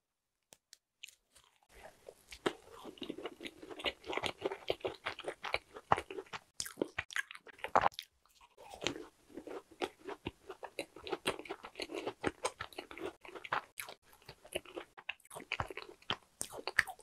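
Biting and chewing a strawberry-milk macaron: the crisp shell crunches, then soft chewy chewing follows. It starts about two seconds in and pauses briefly midway.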